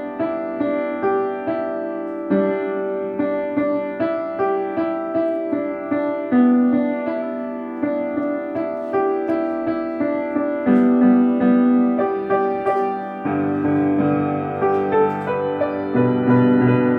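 Piano music: a melody of separate struck notes over chords, each note fading after it sounds, with a lower bass part joining about two-thirds of the way through.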